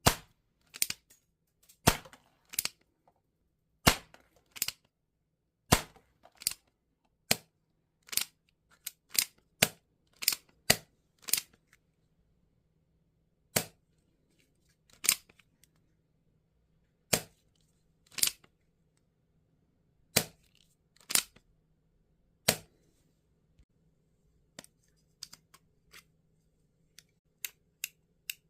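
Tokyo Marui Colt M1851 Navy air-cocking airsoft revolver being worked and fired: a string of sharp mechanical clicks and snaps, often in pairs, roughly once a second at first and then more spaced out, trailing off into faint light ticks near the end.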